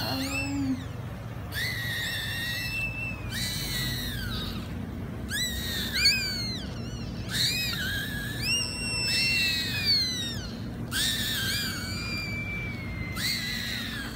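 Newborn puppies crying in thin, high-pitched squeals that rise and fall, one after another throughout, with two or more crying at once at times.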